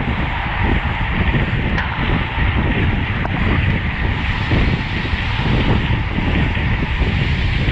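Wind buffeting the microphone of a camera on a road bicycle racing at speed: a steady, loud rushing rumble.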